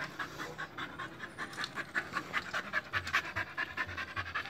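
A dog panting quickly and evenly with its mouth open, about four to five breaths a second.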